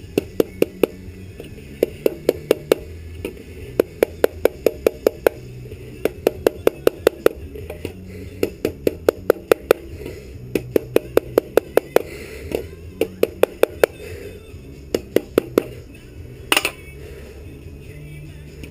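Runs of sharp clicks, several a second in bursts of a few at a time, over a steady low hum, with one louder crack near the end.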